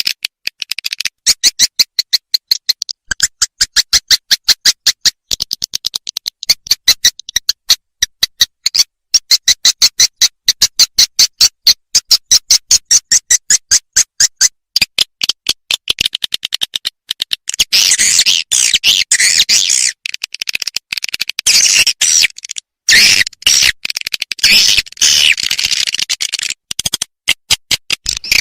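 Swiftlet 'lintasan' lure call, the recording played in a swiftlet house's flyway to draw swiftlets in: fast repeated high chirps, several a second, turning into a denser, overlapping chatter a little past halfway.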